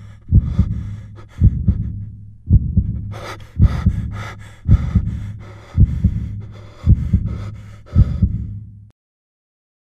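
Heartbeat sound effect, a double thump repeating about every 1.1 seconds, used to stand for a panic attack setting in. From about three seconds in a breathy hiss rides over the beats, and everything cuts off suddenly about a second before the end, leaving silence.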